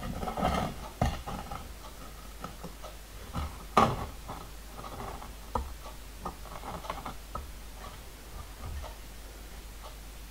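Irregular light metallic taps and clicks of a small steel hand tool against a bent sheet-metal part on the bench, with one sharper knock about four seconds in.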